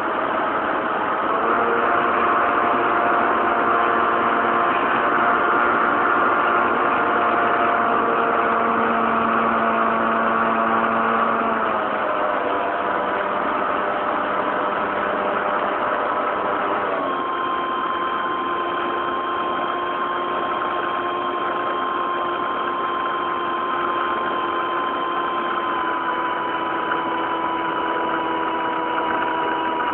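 RC model Cessna 182's motor and propeller running steadily in flight, heard from the onboard camera over a hiss of airflow. Its pitch steps up slightly about a second in, then drops in steps around twelve and seventeen seconds in, with throttle changes.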